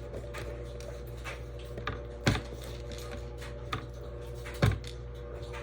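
Irregular light clicks and taps of objects being handled, with two louder knocks about two and a half seconds apart, over a steady faint hum.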